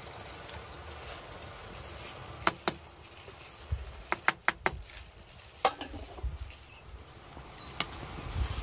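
A ladle stirring banana slices in coconut milk in a large aluminium pot, giving scattered sharp clicks and knocks, a quick run of several about four to five seconds in, over a low steady background.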